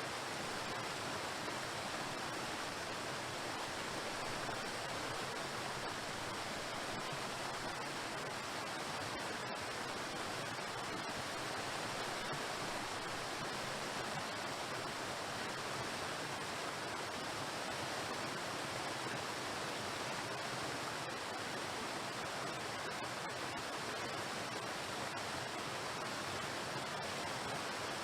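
Waterfall: water falling and crashing against rocks, a steady, unchanging rush.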